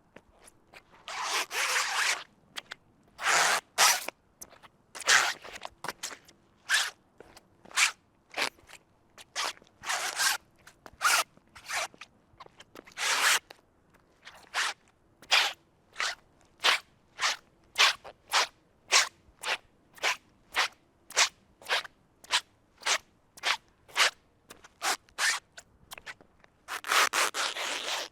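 Footsteps in soaking-wet shoes, each step a wet squelch of a waterlogged sole. A steady run of short squelches, about two a second through the middle, with a few longer, drawn-out ones near the start and end.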